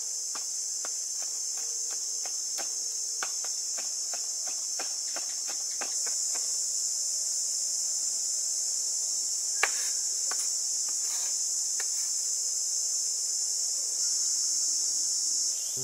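Knife chopping garlic on a wooden cutting board, sharp taps at about two or three a second for the first several seconds, then fewer and more spread out, with one louder knock near the middle. Under it a steady high-pitched insect chorus runs throughout and is the loudest sound.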